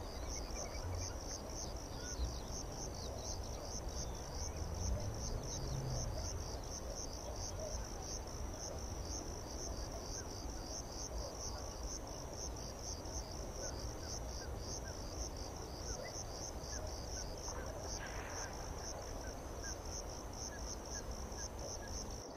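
Insects chirring in the dune scrub, a high, steady trill made of quick even pulses that never stops, over a low, uneven rumble.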